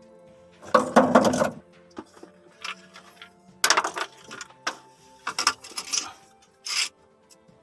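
Handling noise from a small plastic solar charge regulator and its wires being picked up and set down on a battery case: four short bursts of clattering and rustling, the loudest about a second in.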